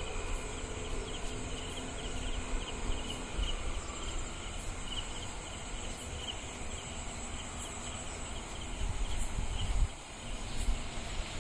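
Night insects, most likely crickets, chirping in quick repeated pulses, over a steady low rumble.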